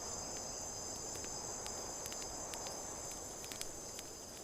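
Night ambience of crickets chirring steadily, with a faint rustling hiss beneath.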